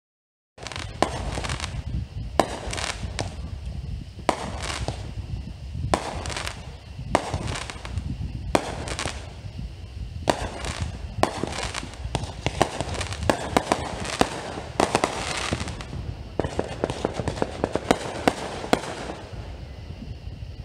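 Aerial fireworks going off one after another: sharp bangs and crackling bursts, several a second at times, over a steady low rumble.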